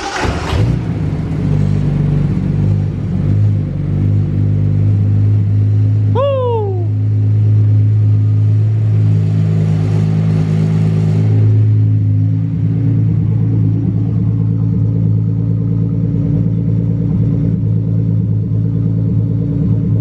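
Turbocharged Datsun L28E straight-six catching right at the start and settling into a steady idle. A short falling whistle sounds briefly about six seconds in.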